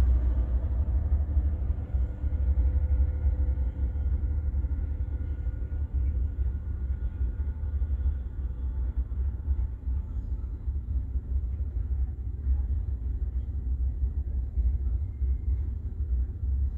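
Container wagons of a freight train rolling past on the track: a steady low rumble, with a faint hum that fades away over the first half.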